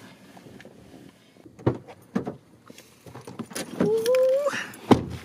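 A few light clicks and knocks as a person climbs into the back seat of a car, a brief hummed voice sound, then a single solid thump near the end like a car door being shut.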